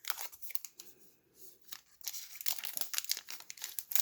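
Crinkling of a plastic baseball-card pack wrapper and cards being handled: a run of quick crackles, sparse at first and thicker from about two seconds in.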